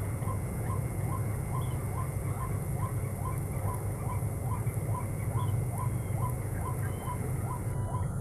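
Repeated call of a white-breasted waterhen (ruak-ruak): one short rising note over and over, evenly, about two and a half times a second, over a steady low rumble.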